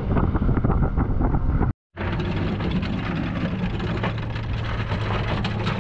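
Sailboat motoring under its engine: a steady low engine drone with wind rumbling on the microphone, broken by a brief dropout to silence about two seconds in.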